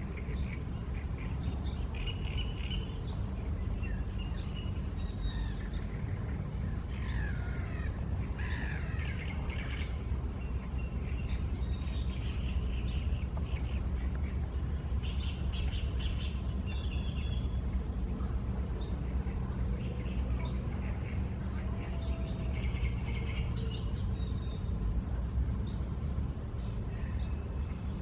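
Wild songbirds chirping and trilling in short calls throughout, over a steady low rumble.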